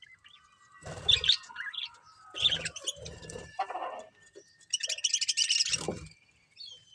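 Budgerigars chirping and chattering in quick bursts of high warbling notes, with a few held whistles. Low thumps sound under several of the bursts.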